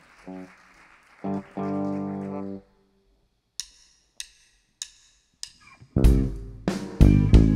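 A few stray electric guitar or bass notes, one held, then four drumstick clicks counting in. About six seconds in, a rock band of drum kit, bass and electric guitars starts playing together.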